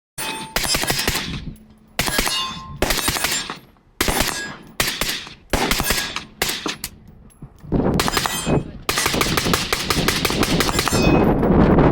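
AK-pattern rifle gunfire: quick strings of shots with echoing tails, then a long, dense run of rapid shots from about nine seconds in.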